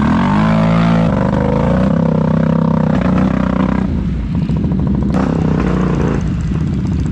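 ATV engine revving hard as the quad churns through deep mud. The pitch climbs over the first second, holds high, then eases back to a lower steady running note about four seconds in.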